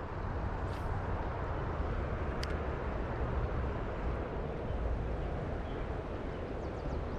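Rain-swollen creek running high and fast, a steady rushing of water.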